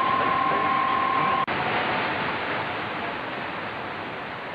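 AM radio receiver hiss and band static between transmissions on the CB skip band, with a steady whistling tone that cuts off with a click about a second and a half in. After that the hiss carries on, slowly getting a little quieter.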